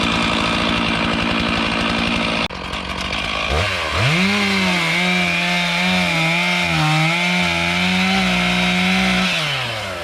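Stihl MS 461 two-stroke chainsaw running at high revs while cutting firewood. After an abrupt break a couple of seconds in, it revs up again and holds full throttle for about five seconds, its pitch wavering slightly under load. It revs down near the end.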